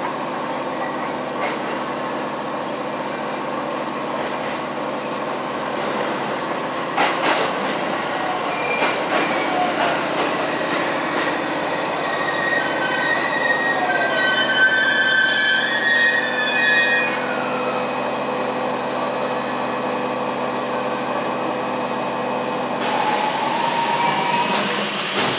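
Local electric train pulling into the platform: a steady running rumble with a couple of sharp clanks about seven seconds in, and high wheel and brake squeals in the middle that slide down in pitch as it slows. A hiss starts suddenly near the end.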